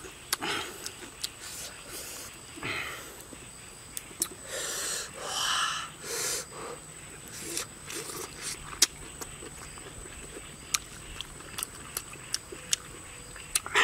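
Eating noises from a person eating spicy chilli-dressed squid: several breathy exhales in the first half, then a run of short wet mouth clicks and smacks as he chews.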